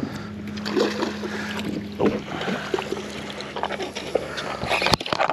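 Hooked jack crevalle thrashing and splashing at the surface beside the boat, over a steady low motor hum that stops about two seconds in.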